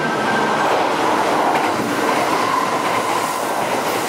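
Kintetsu 30000 series Vista Car limited express train running through the station at speed without stopping: steady loud running and wheel-on-rail noise, growing brighter near the end as the cars pass close by.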